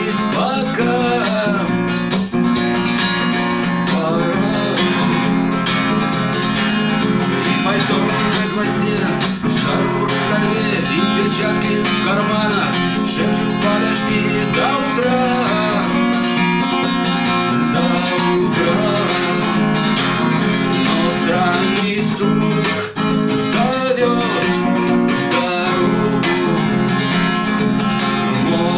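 Acoustic guitar strummed steadily, with a voice singing over it.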